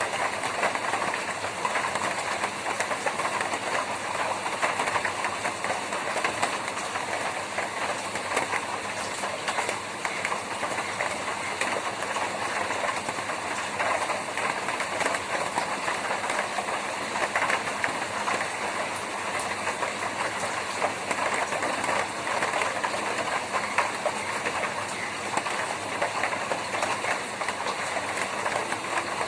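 Rain falling on a tin roof: a dense, steady patter of many drops striking sheet metal.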